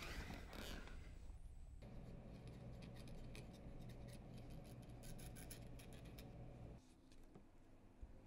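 Near silence: faint room tone with a low steady hum and scattered faint ticks, which drops quieter about seven seconds in.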